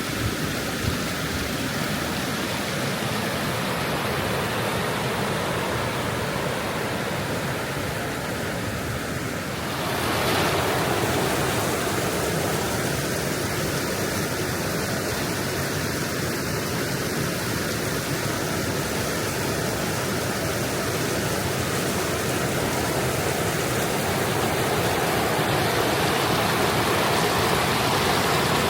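Oxtongue River water rushing over rapids, a steady full rush of noise that grows louder about ten seconds in.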